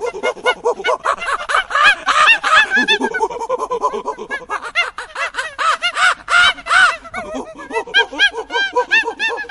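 Monkey chattering: a fast, unbroken run of short, pitched calls, several a second.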